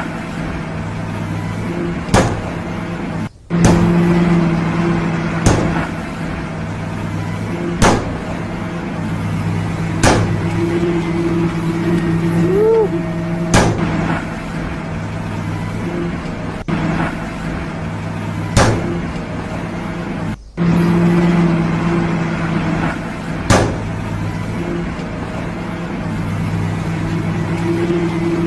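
Excavator's diesel engine running steadily, with sharp single bangs every two to three seconds.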